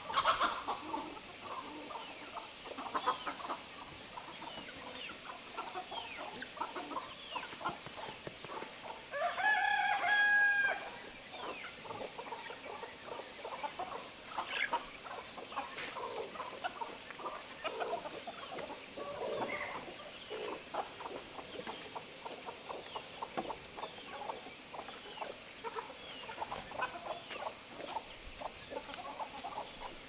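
Chickens clucking throughout, with a rooster crowing once about ten seconds in, the loudest sound.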